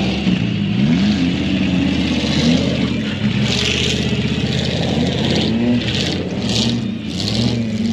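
Off-road race truck engines revving hard on a dirt track, the pitch rising and falling as the drivers work the throttle. In the second half comes a series of short hissing rushes.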